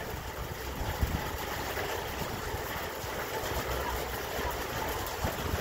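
Wind buffeting an outdoor microphone: a steady, uneven low rumble over an even hiss.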